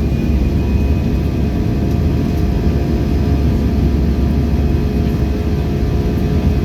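Airbus A320-214's CFM56 turbofan engines and airflow heard inside the passenger cabin: a steady low rumble with a few steady whining tones over it.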